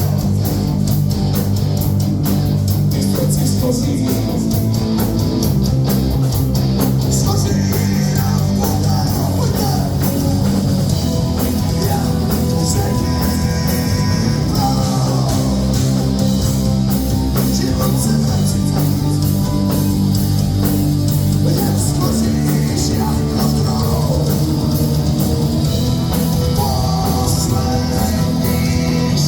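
Rock music with electric guitar, drum kit and a singing voice, loud and steady, with cymbals hitting throughout.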